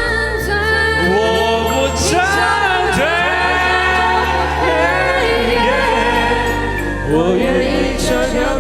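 A singer's voice with instrumental accompaniment and a sustained bass line.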